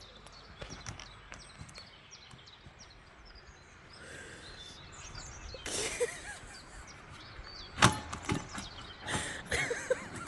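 Outdoor ambience with birds chirping over a steady background hiss, and a few sharp knocks and clicks, the loudest about eight seconds in, as people move across a wooden footbridge.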